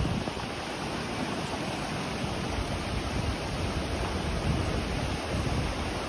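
Clear, shallow mountain river rushing over stones in a steady hiss, with wind now and then rumbling on the microphone.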